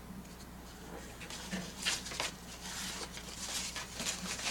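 Paper cards rustling and sliding as they are handled, in short irregular bursts that start about a second in.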